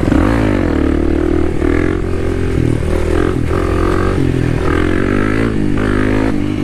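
Kawasaki KLX300 single-cylinder four-stroke dirt bike engine running under way. The revs drop just after the start, then rise and fall with throttle changes every second or so.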